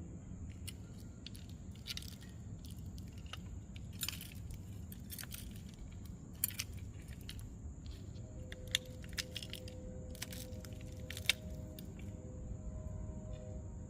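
Small metal parts clicking and clinking at irregular moments as screws and a metal bracket are handled, with the sharpest click about eleven seconds in.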